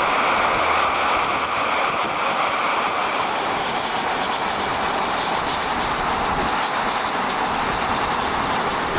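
Steam hissing steadily out of a fumarole (solfatara) vent.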